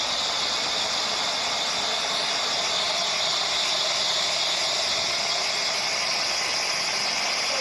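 Miniature 15-inch-gauge steam locomotive standing in steam, with a steady high hiss of escaping steam at an even level.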